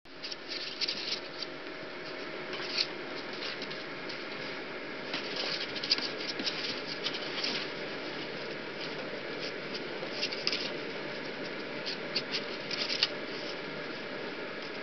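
Rat Terrier puppies' claws scratching and pattering on a plastic wading pool and towels as they scramble about: quick scattered runs of scratches over a steady background hiss.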